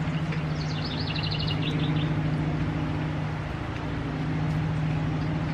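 A steady low machine hum, with a quick run of high chirps about a second in.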